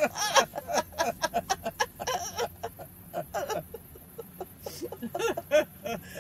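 Laughter in quick repeated bursts of giggling, dying down around the middle and flaring up again briefly near the end.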